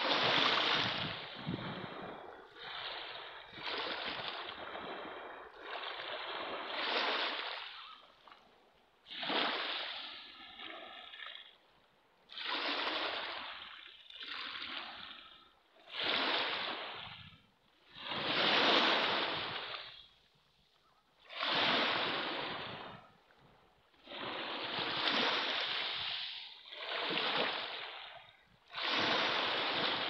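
Small ocean waves breaking and washing up a pebble beach, each one a surge of noise that swells and falls away, coming every two or three seconds with quieter gaps between.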